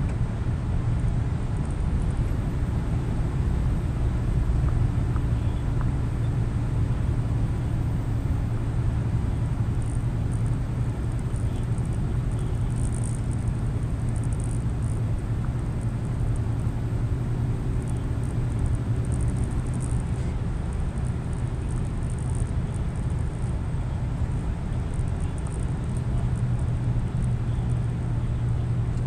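Scania truck cruising at steady speed: an even, low drone from the diesel engine with road and tyre noise.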